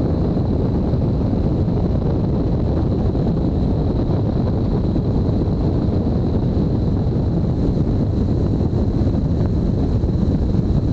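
Steady rush of wind buffeting a camera mounted on the underside of a light aircraft, with the airplane's engine and propeller noise beneath it, as it flies a few feet above the runway just before landing. A faint steady high whine runs through it.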